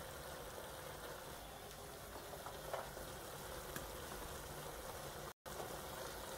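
Sliced pork frying in a large aluminium pot on a gas stove: a steady sizzle, with a few faint clicks as ingredients are tipped in from a plate. The sound cuts out for a split second near the end.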